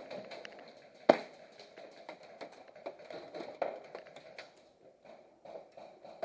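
Footsteps and small taps and clicks of moving players' gear, with one sharp crack about a second in.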